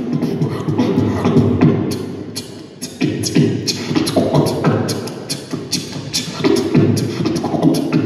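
Solo beatboxing amplified through a microphone and PA: rapid, sharp snare- and hi-hat-like mouth hits over a hummed bass line, with a brief lull just before three seconds in.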